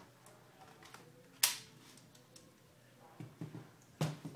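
Sharp plastic clicks as a laptop battery is pushed into its bay on a Dell Inspiron 15R N5010 and latched. One loud click comes about a second and a half in, a few fainter knocks follow around three seconds, and another sharp click comes near the end.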